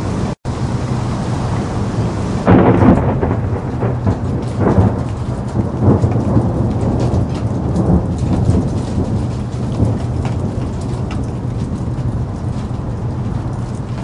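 Steady heavy rain with a rumble of thunder that swells in about two and a half seconds in, loudest for a few seconds, then eases back under the rain. A split-second drop-out in the audio comes right at the start.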